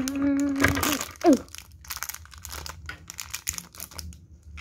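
Crinkly foil blind-bag packet being pulled open by hand, with a dense run of short crackles and crinkles.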